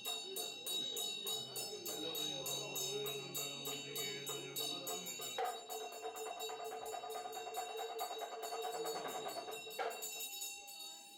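Music with a steady jingling-bell beat, about four jingles a second, over held tones; it fades near the end.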